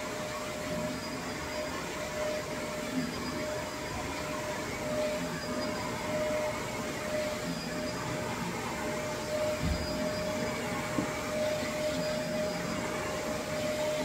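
Shark upright vacuum running steadily as it is pushed over carpet: a continuous motor and airflow noise with a steady hum-like tone, and one short low thump about ten seconds in.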